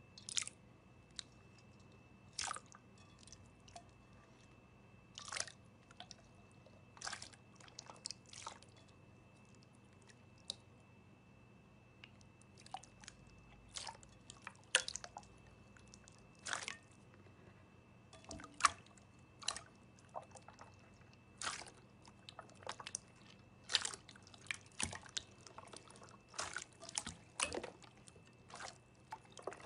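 Clear slime being poked, pressed and stretched by fingers: irregular sticky crackles and small pops, some in quick clusters. A faint steady high tone and hum run underneath.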